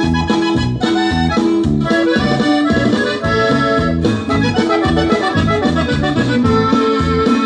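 Instrumental break of a Spanish-language song: an accordion carries the melody over a steady, evenly pulsing bass and rhythm accompaniment.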